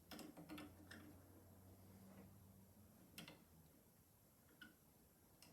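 Near silence with a few faint, light clicks and taps, the sound of a ground wire being carefully moved inside a live light-switch box. A faint low hum runs under the first few seconds.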